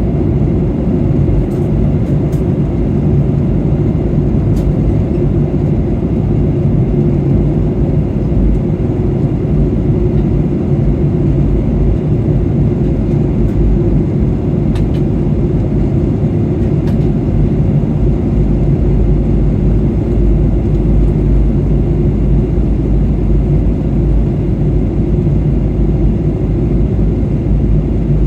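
Steady low rumble inside the cabin of a Boeing 737-800 in flight: engine and airflow noise that holds unchanged throughout.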